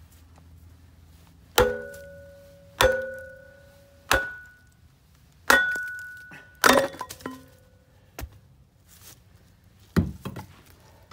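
Hammer blows driving a log down onto the wedge of a kindling splitter: about six sharp strikes spaced a second or so apart, each with a short metallic ring, and a quick run of smaller cracks after the fifth.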